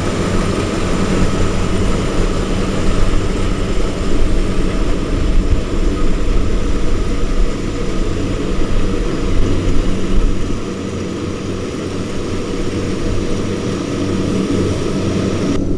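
Diesel engine of a Kubota rice-harvesting machine running steadily with a constant hum, its level easing a little about ten seconds in.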